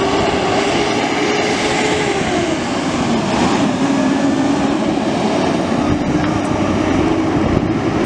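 L.A. County Fire crew truck driving past at close range, its engine and tyres loud and steady, the engine note dropping in pitch as it goes by about two to three seconds in.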